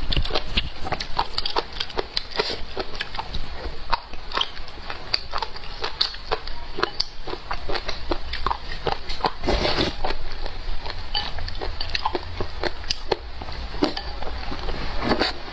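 Close-up chewing of crunchy pickled shredded papaya: many short, irregular crisp crunches and wet mouth clicks.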